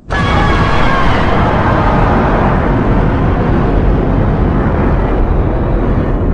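Kaiju sound effect: a loud, dense rumbling blast that starts abruptly and holds steady for about six seconds, with a few faint high tones in its first second.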